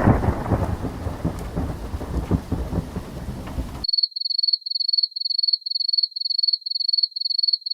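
Thunderstorm sound effect: a rumble of thunder fading into steady rain. About four seconds in it cuts off abruptly and a high-pitched beeping takes over, about three beeps a second.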